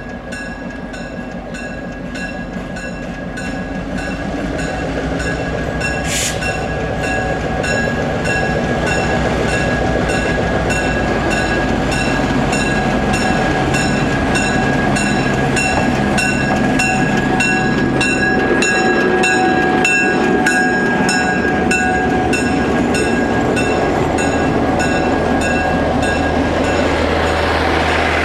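EMD GP7 diesel locomotive's bell ringing steadily in even, repeated strokes over the rumble of its diesel engine, which grows louder as the locomotive rolls closer at low speed. A short hiss of air comes about six seconds in.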